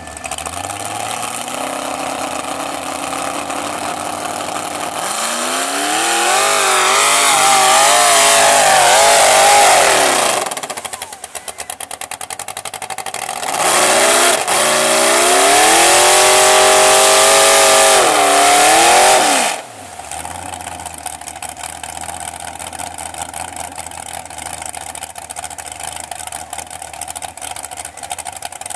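Mud truck on tractor tires, its engine revved hard twice for several seconds each, the pitch climbing and wavering as the tires churn in deep mud, each rev cutting off sharply. Between and after the revs the engine runs at a low, steady speed.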